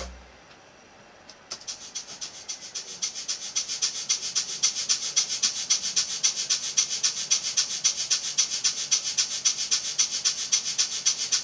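A fast, even rhythm of short hissy strokes, about six to seven a second, starting about a second and a half in. It follows a sharp hit at the very start that fades away.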